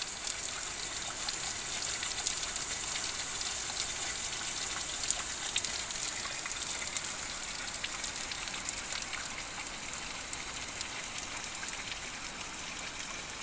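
Steady rushing of flowing water, a hiss with faint ticks and splashes in it, easing slightly in the second half.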